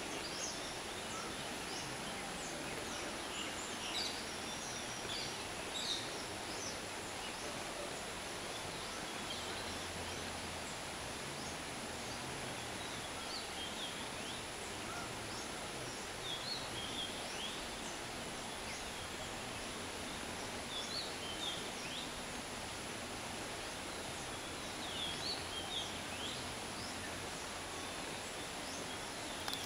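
Natural outdoor ambience: short bird chirps in small clusters every few seconds over a steady, high-pitched insect drone and a constant low hiss.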